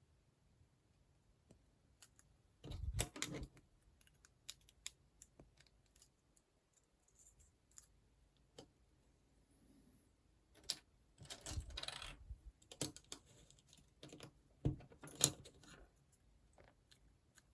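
Small plastic building blocks clicking and rattling as pieces are handled and pressed together, in scattered clicks with denser bursts a few seconds in, past the middle and near the end.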